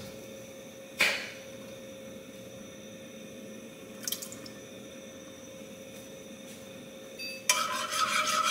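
A sharp click about a second in and a soft plop of salsa dropping into a saucepan about four seconds in, over a faint steady hum. Near the end a spoon starts stirring the thickening sauce, scraping steadily around the saucepan.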